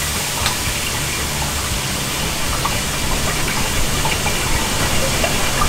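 Stir-frying in a carbon-steel wok over a commercial gas wok burner: a steady rushing burner noise with food sizzling and a few light clicks of a metal ladle against the wok. It gets a little louder about three seconds in.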